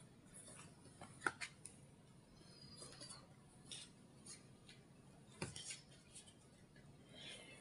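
Tarot cards being handled on a table: a few faint taps, clicks and soft rustles as cards are picked up and laid down, the sharpest click about a second in and another about five seconds in, in a quiet room.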